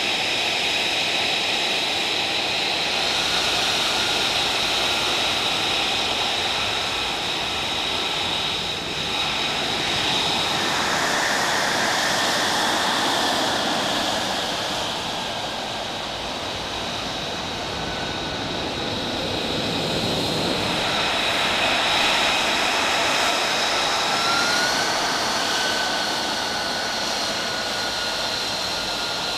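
F-35B Lightning II's Pratt & Whitney F135 jet engine idling on the ground: a steady rushing roar with high whining tones, which step up slightly in pitch near the end.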